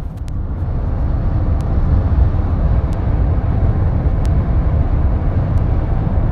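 Steady low rumble of a moving vehicle heard from inside, with a few faint clicks.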